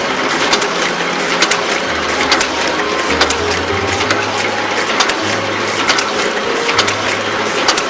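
Semi-automatic book sewing machine running, a steady mechanical clatter with sharp clicks repeating about twice a second as it stitches book signatures.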